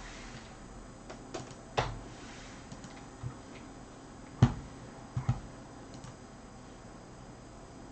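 Scattered light clicks and taps of small hard objects being handled and set down on a desk. The loudest knock comes about four and a half seconds in, followed by a quick double knock.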